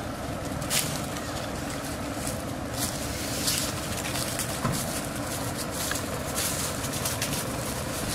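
Dry leaf litter crunching and rustling under footsteps, in irregular crackles about once a second, over a steady low rumbling background.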